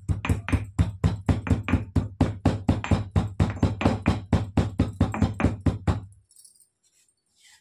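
Black peppercorns being coarsely crushed with a pestle: rapid, even knocks, about five strikes a second, that stop about six seconds in.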